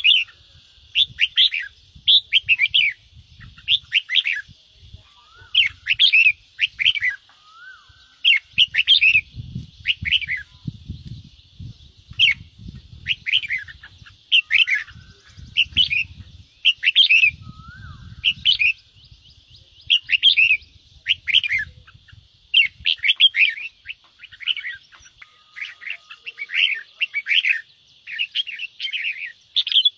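Red-whiskered bulbuls giving 'ché' calls: quick bursts of chirping and chattering, about one a second. These are the agitated fighting calls that keepers play to fire up a caged bulbul.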